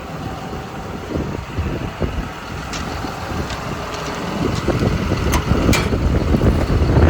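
John Deere 210G excavator's diesel engine idling as a steady low rumble that grows louder toward the end, with a few sharp clicks and knocks.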